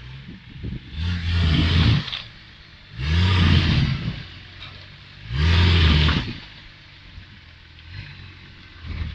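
Nissan Patrol Y60 off-road prototype on 37-inch tyres revving in three short bursts, the engine pitch rising each time, then falling back to idle. It is straining to climb over rocks and may be stuck.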